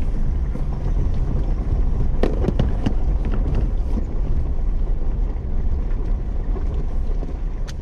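Jeep driving slowly over a dirt and gravel trail, heard from inside: a steady low engine and tyre rumble, with a few sharp ticks and knocks about two to three and a half seconds in.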